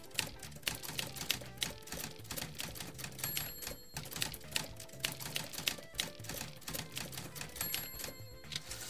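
Typewriter sound effect: rapid, irregular key clacks with a high ring twice, over background music.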